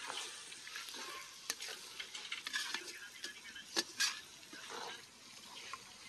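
Tomato and spice masala sizzling as it fries in a large metal kadai, stirred and scraped with a perforated ladle. A few sharp clicks of the ladle against the pan, the loudest about a second and a half in and twice near four seconds.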